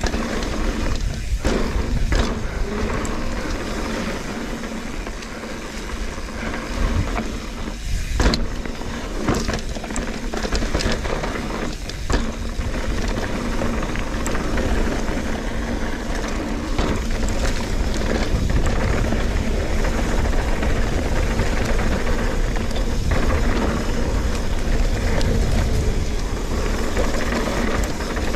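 Trek Fuel EX 8 full-suspension mountain bike ridden fast along a dirt trail. Wind rumbles steadily on the GoPro's microphone under tyre noise and rattling from the bike. Sharp knocks from bumps come every second or two in the first half.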